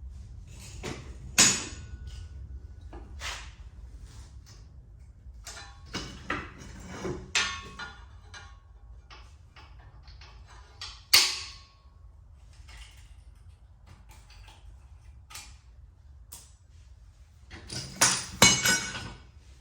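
Metal clanks, knocks and scrapes of pins and lift-arm parts being worked off a John Deere 1026R compact tractor's three-point hitch, over a steady low rumble. One sharp clank about eleven seconds in rings briefly, and several more clanks come close together near the end.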